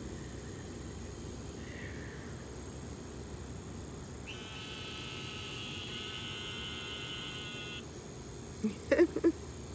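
A steady, high trill from an unseen animal starting about four seconds in and lasting about three and a half seconds, with a faint steady high whine beneath it.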